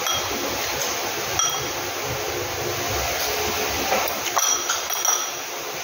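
A few light clinks of dishes and utensils, several of them close together about four to five seconds in, over a steady hiss.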